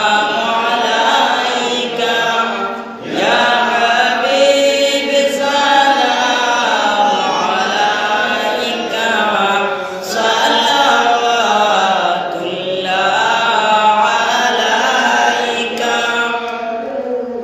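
A man chanting a milad sharif, an Islamic devotional recital, in long wavering sung phrases with brief breaks about three, ten and thirteen seconds in.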